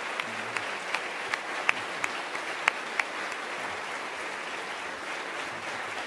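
Audience applauding steadily, with a few louder single claps standing out in the first three seconds.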